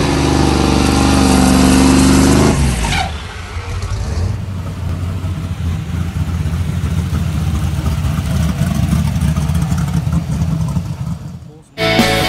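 Drag-race Oldsmobile Cutlass 442 engine held at high revs, pitch rising slightly, for the first few seconds, then cut off abruptly. After that the same car's engine gives a lower, lumpy, uneven rumble while it rolls slowly, fading out before music starts near the end.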